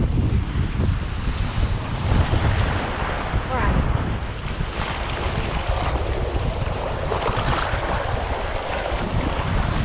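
Rough sea surf washing and breaking around rocks in the shallows, with heavy wind buffeting on the microphone.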